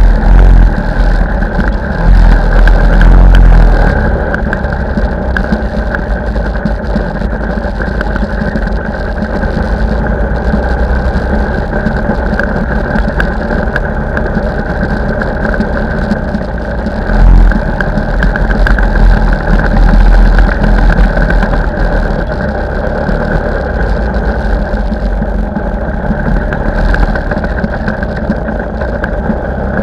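Lambretta scooter's two-stroke engine running steadily while riding, heard from the bike itself. Low wind rumble buffets the microphone in the first few seconds and again a little past halfway.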